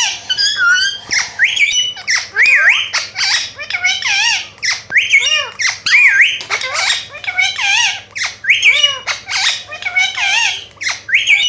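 Parrot calling in a rapid run of shrill squawks, a few a second without a break, each call bending up and down in pitch.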